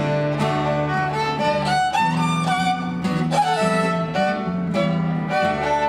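Fiddle playing a tune with held notes and a few slides between them, over a strummed acoustic guitar.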